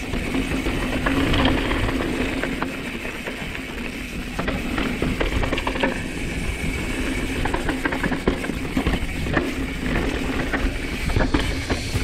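Mountain bike rolling fast down a dry dirt trail: a steady rush of wind and tyre noise on the dirt, broken by frequent knocks and rattles from the bike as it runs over bumps.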